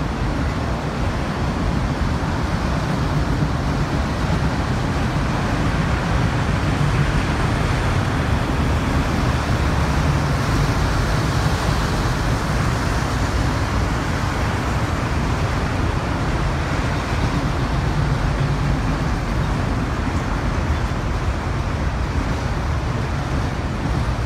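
Freight train of autorack cars rolling past: a steady, unbroken low running noise of the wheels on the rails.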